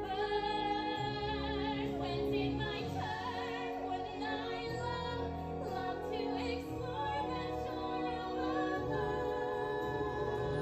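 Live stage-musical singing: a singer holds long notes with vibrato over orchestral backing, heard from the audience seats.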